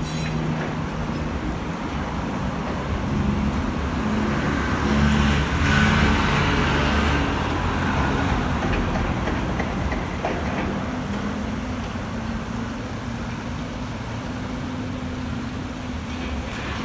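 City road traffic: engines running with a steady low hum, swelling as a vehicle passes about five to seven seconds in.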